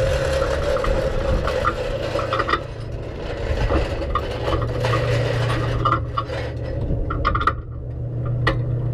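Race car engine idling while stopped, heard from inside the cabin as a steady low hum that firms up about halfway through, with light clinks and rattles and a couple of sharp clicks near the end.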